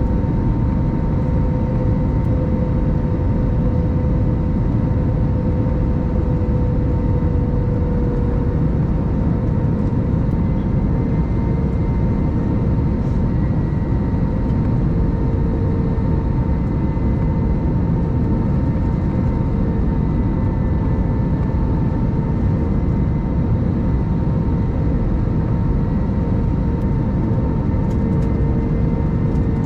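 Steady cabin drone of an Airbus A321-200 with its engines running: a dense low rumble of engine and airflow, with a steady hum of engine tones on top that drifts slightly in pitch.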